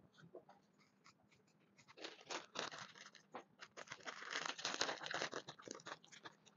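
Plastic crinkling and rustling as it is handled: a few faint ticks, then from about two seconds in a dense run of quick crackles, thickest in the middle.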